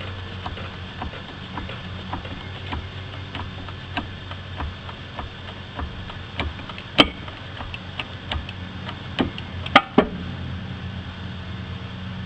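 A car jack being worked to lift the car, making a steady run of short clicks about one to two a second, with a few louder clacks near the end, over a steady low hum.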